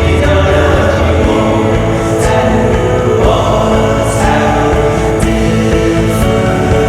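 Indie rock band music playing, with sustained choir-like singing over the band.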